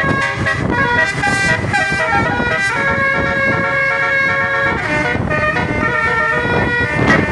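Indonesian 'telolet' bus horn, a 12-note basuri set of air horns, playing a melody: held horn notes that step from pitch to pitch, several sounding together, over a low rumble.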